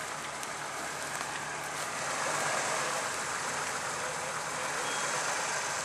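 Jeep Wrangler engine running under load as it crawls up a steep slope, with the noise swelling a little about two seconds in.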